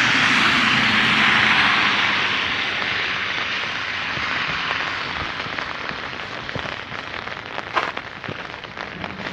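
Tyre hiss of a car passing on the wet, icing road, loudest in the first couple of seconds and then fading away, followed by freezing rain ticking on an umbrella.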